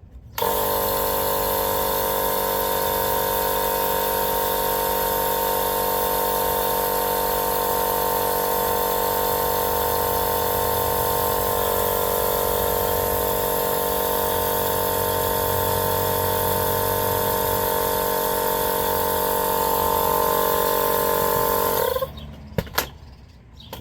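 Small battery-powered air pump running steadily, inflating a tubeless mini bike tire that is held in a ratchet strap so its beads will seat. It starts about half a second in and stops about two seconds before the end.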